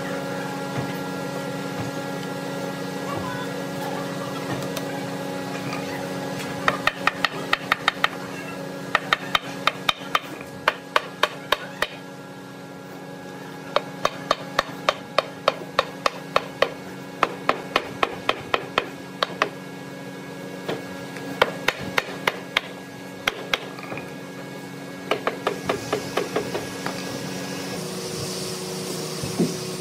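Hammer tapping a solid-wood panel frame, quick runs of light knocks about five a second, driving the rails and stiles tight at the joints. The tapping comes in several bursts with short pauses between them.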